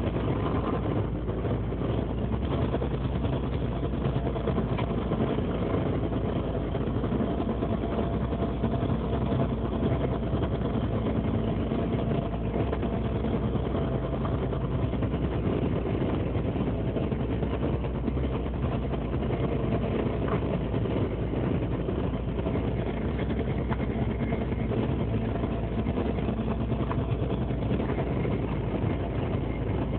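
A longline fishing boat's engine and deck machinery running steadily, a constant low hum with no change in level.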